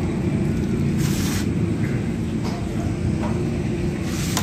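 Steady low rumble of background machinery, with a brief hissing rustle about a second in and a few light clicks at the very end.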